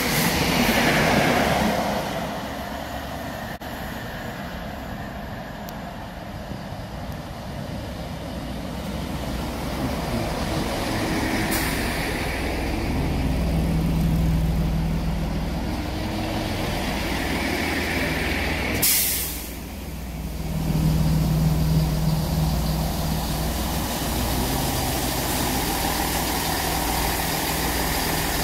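The last of a high-speed train rushes past at the start. Then a Chiltern Railways Class 165 diesel multiple unit runs into the platform with its diesel engines humming. A sharp hiss of air from the brakes comes about two-thirds of the way through, and the engines then idle while it stands.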